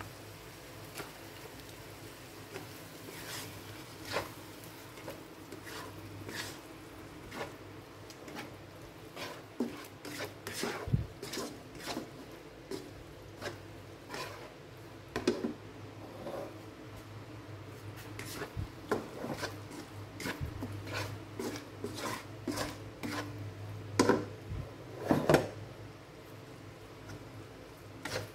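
A spatula scraping and knocking against a nonstick wok as a thick sauce is stirred, in irregular strokes, the strongest two near the end, over a steady low hum.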